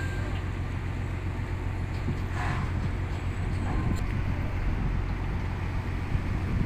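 Steady low rumble of heavy diesel engines running, with a brief hiss about two and a half seconds in and a single sharp click near four seconds.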